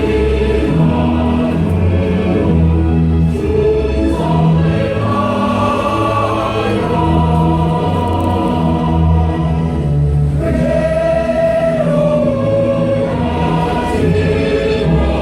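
A choir singing a slow song to music, with notes held for a second or more.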